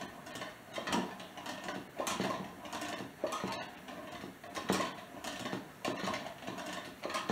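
A 1915 hand-cranked glass-jar butter churn being cranked: the gears in its lid click and rattle, with a louder knock roughly once a second as the handle goes round. The gears drive a paddle back and forth through the cream.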